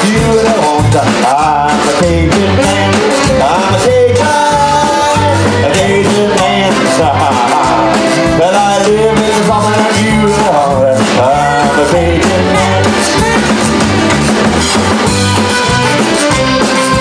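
Live Cajun band playing an instrumental passage with a steady beat: piano accordion, rubboard, electric bass, guitar and drum kit, with a bending melody line over them.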